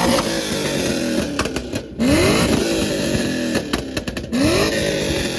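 Car engine revved hard two or three times in quick succession, each rev rising sharply and falling back, with exhaust pops and crackles on the overrun from a tune set up to crackle.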